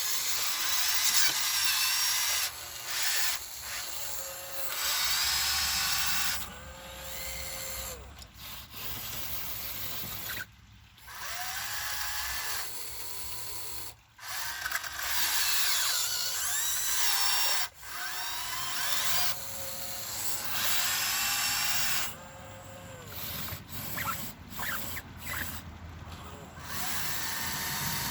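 Small electric motors and gearboxes of a Huina 1599 RC excavator whining in repeated short runs that start and stop every second or few seconds. The pitch bends as each motor speeds up or slows under load.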